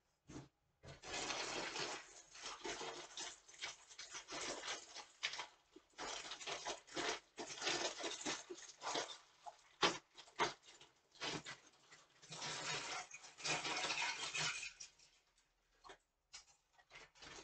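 Plastic food packaging rustling and crinkling in long irregular stretches as a bag is handled and opened, with sharp crackles and clicks in between.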